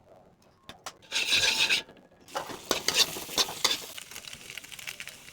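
Food dropped into hot oil in a frying pan sizzles loudly for about a second, then keeps frying with a steady sizzle while a spatula stirs and scrapes against the pan.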